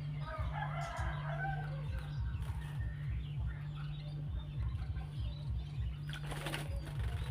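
Cucak jenggot (grey-cheeked bulbul) chirping over background music with a steady pulsing low beat. A short rush of noise comes near the end.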